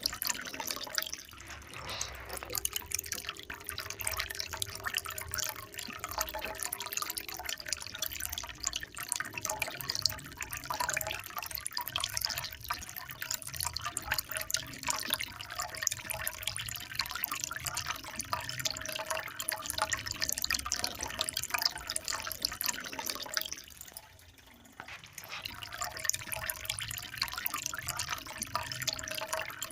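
Running water, a steady splashing and trickling with fine dripping detail. It drops away briefly about four-fifths of the way through, then resumes.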